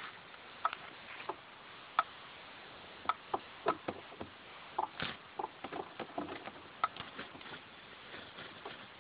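Irregular light clicks and taps, a dozen or so unevenly spaced, most of them in the middle of the stretch, over a steady hiss.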